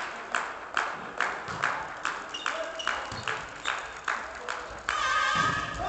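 Volleyball spectators keeping up a steady rhythmic beat of sharp claps or bangs, about two and a half a second, with short calls over it and a held call near the end.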